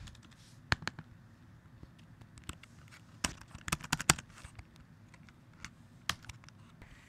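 Computer keyboard keys clicking now and then, with a quick run of clicks around the middle.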